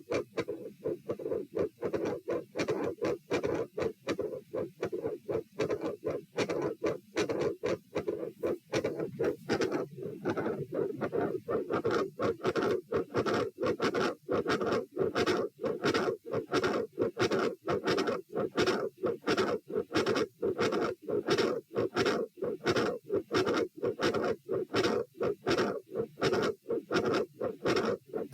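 Heart sounds heard through a stethoscope: a steady train of paired lub-dub beats, with a mid-systolic sound and a split second heart sound, as the recording is labelled. The beats come a little faster after about ten seconds.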